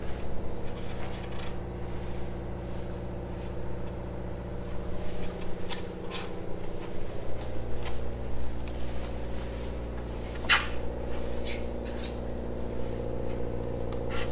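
A steady low mechanical hum runs under scattered knocks, clicks and scrapes of hand tools being handled and worked against the fiberglass hatch coaming. The sharpest knock comes about two-thirds of the way through.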